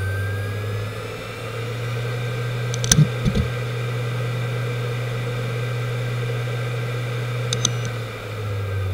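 Samsung SpinPoint F1 HD103UJ 7200 rpm hard drive finishing its spin-up with a rising whine, then idling with a steady hum. Brief clicks come from the drive about three seconds in and again near the end, and then the pitch starts to fall as the platters spin down.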